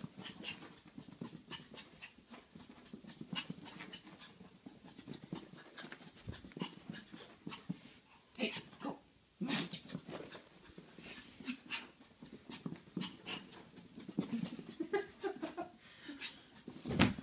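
Small dog panting in quick, irregular breaths.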